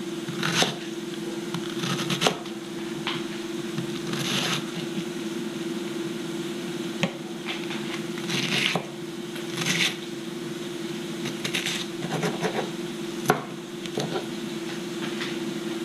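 Chef's knife dicing an onion on a plastic cutting board: scattered sharp taps of the blade on the board and short crunchy slicing sounds, with a steady hum underneath.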